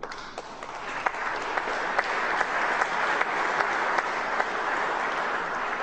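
Audience applauding: many hands clapping, building over the first two seconds and then holding steady.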